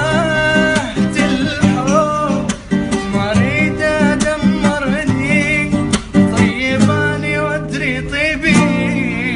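A song: a solo voice singing a wavering, ornamented melody over plucked-string accompaniment.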